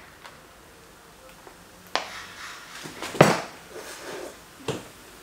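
Things being handled on a desk: a sharp click about two seconds in, a loud knock a little after three seconds, and smaller clinks near the end.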